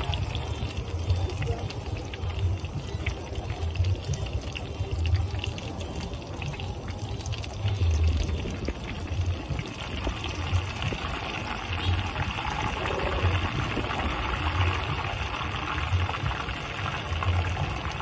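Beaten egg deep-frying in a wok of hot oil, the oil sizzling and bubbling steadily as more egg is squeezed in.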